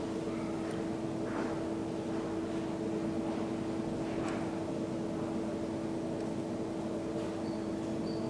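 A steady mechanical hum at one unchanging pitch, over a faint even background noise, with a few light clicks.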